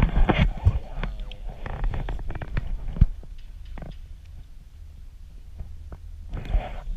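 Low, steady wind rumble on an action camera's microphone during a chairlift ride, with scattered knocks and clicks in the first few seconds and a sharp knock about three seconds in.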